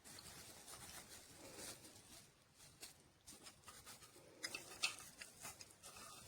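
Very faint rustling with scattered soft clicks, and a short cluster of sharper clicks between four and five seconds in.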